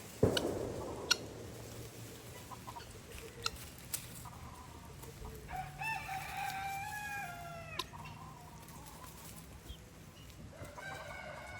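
A rooster crowing once about halfway through: one long call that holds its pitch and then drops off at the end. Another call starts near the end, and a sharp knock sounds right at the start.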